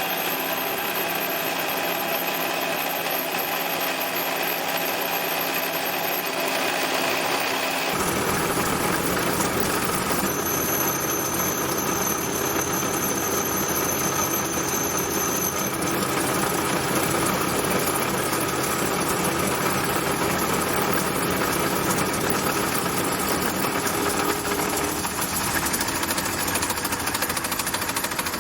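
Home-built Gingery milling machine running under cut, its belt-driven cutter facing off an aluminium jaw with a steady mechanical whine and chatter. About eight seconds in, the sound turns rougher and fuller and stays that way.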